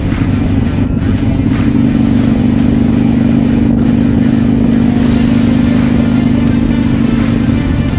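Harley-Davidson Iron 883's air-cooled V-twin engine with a Vance & Hines slip-on exhaust, running at a steady pitch as the bike cruises.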